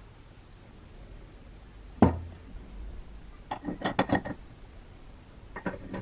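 A single knock about two seconds in, then two short runs of metal-on-metal clinking as steel rods are slid into the holes of the Woden Quiksaw's metal body.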